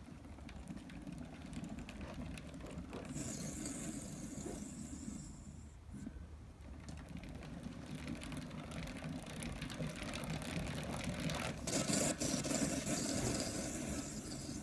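Coaster-brake rear hub of a single-speed bicycle turning in the frame, with a steady rough mechanical noise that grows louder after about ten seconds. The hub is not running smoothly.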